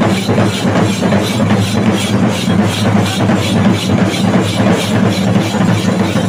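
Chenda drums and cymbals beating a fast, steady rhythm of about four strokes a second over a steady low hum, accompanying a thirayattam ritual dance.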